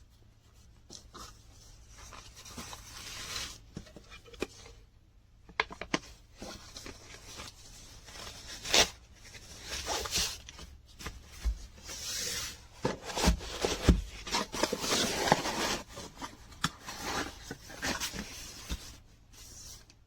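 Hands handling small objects, likely tools from the kit or its case: irregular rubbing and scraping with sharp clicks and taps. It grows busier after the first few seconds, with a few louder knocks in the middle.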